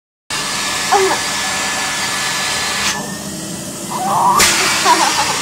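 Vacuum cleaner running with a steady whine. About three seconds in, the sound goes muffled and the whine rises slightly for about a second and a half as the suction is blocked, then it opens up again. Short bursts of voice, laughter-like, come near the start and toward the end.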